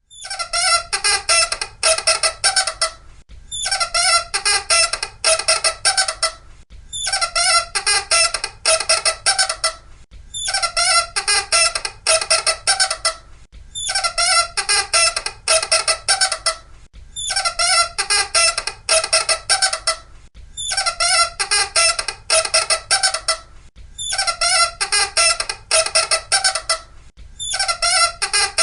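Loud, high-pitched squeaking: runs of rapid squeaks, each run lasting about two and a half seconds, repeating with short gaps about every three and a half seconds, nine times over.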